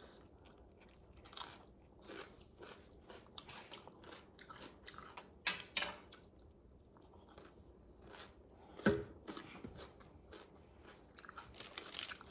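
Close-up eating sounds of spicy instant noodles, egg and sausage: chewing and biting with soft crunches and many small mouth clicks, and one louder knock about nine seconds in.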